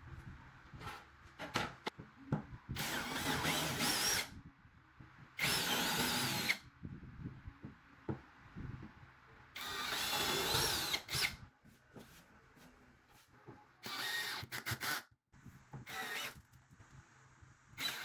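Power drill running in five short bursts, its motor whine rising and wavering with load in each, with quieter pauses between.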